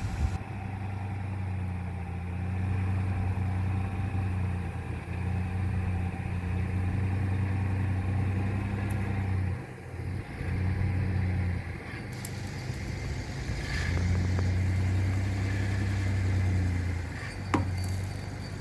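Pickup truck engine running at low revs while towing on a rope to pull a cut tree over, its note swelling and easing several times with a brief drop about ten seconds in. A couple of sharp snaps near the end.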